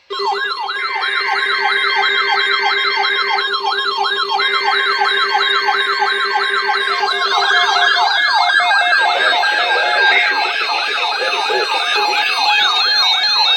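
Electronic siren in a fast yelp, its pitch rising and falling about three to four times a second over a steady low tone. About seven seconds in, a second yelp joins, out of step with the first, and the low tone stops about a second later.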